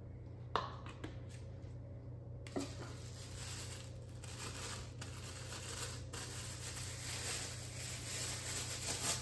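Thin disposable plastic food-prep gloves crinkling and rustling as they are pulled onto the hands, a continuous crackle that starts about two and a half seconds in and grows a little louder, after a few light clicks.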